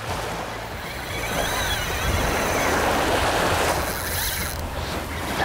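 Small waves breaking and washing up a sandy beach: the rush of the surf swells about two seconds in and eases off after about four seconds.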